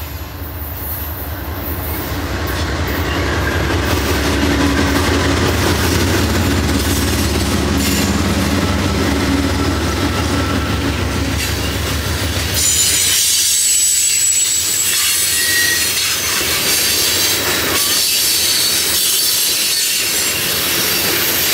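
BNSF diesel freight locomotive approaching and passing with a loud, steady low engine drone. About twelve seconds in, the engine sound gives way to the rumble and rattle of open-top hopper cars rolling past, with thin high wheel squeals.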